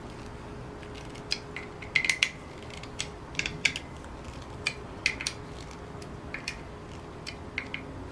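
Irregular small clicks and ticks of a screwdriver turning screws into a Laing DDC pump's top and mount. The clicks come in uneven clusters, the loudest about two seconds in.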